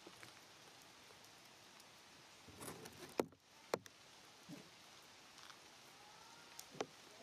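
Quiet background with a few faint, scattered clicks and taps, the sharpest a little past three seconds in.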